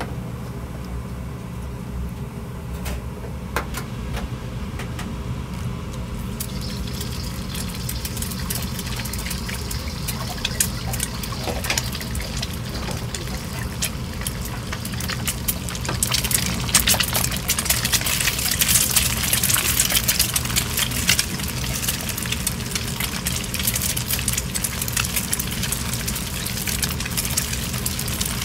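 Restaurant kitchen cooking fried rice: a steady low roar of burner and exhaust, with a frying hiss setting in about six seconds in and growing louder, mixed with sharp clinks of utensils, around the middle.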